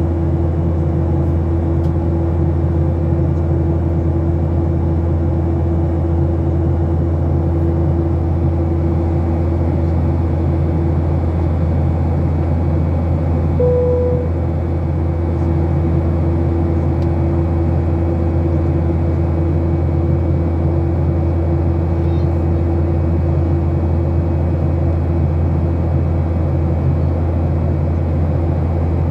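Steady cabin drone of a Ryanair Boeing 737 at cruise: jet engine and airflow noise heard from a window seat, a constant low hum with a steady tone above it. A single short tone sounds about halfway through.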